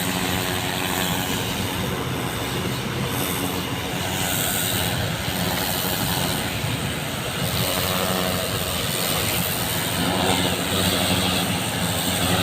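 Steady engine hum from the pump engine of the flushing equipment, with the even hiss of water jetting from a hose onto paving.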